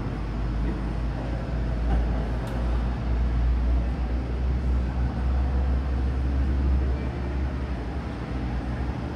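Boeing 737 MAX 8's CFM LEAP-1B turbofans at takeoff thrust as the jet lifts off and climbs away, heard through terminal glass as a deep, steady rumble that swells in the middle and eases a little near the end.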